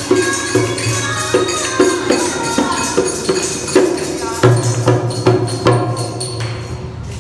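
Instrumental devotional music: a melody over a low sustained drone, with a steady percussion beat about twice a second, thinning out near the end.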